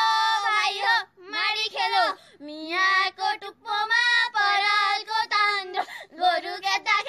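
A young female voice singing a traditional Nepali threshing work song in long, wavering held notes, in short phrases with brief breaks between them.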